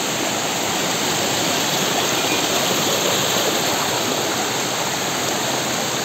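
Shallow rocky stream rushing over small cascades: a steady, unbroken rush of water.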